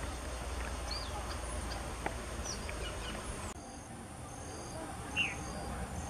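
Outdoor bird ambience with short, scattered bird chirps. About three and a half seconds in, the background changes and a high insect chirring comes in as evenly spaced pulses, with one louder short bird chirp near the end.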